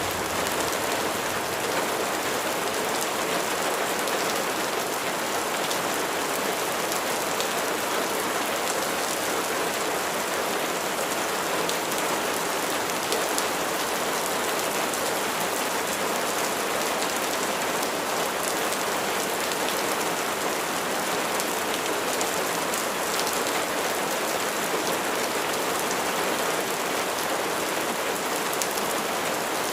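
Steady rain falling and pattering on surfaces, an even hiss with many small drop ticks.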